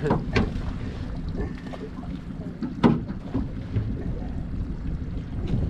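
Small boat's outboard motor running with a steady low rumble, wind buffeting the microphone, and a sharp knock on the boat about three seconds in.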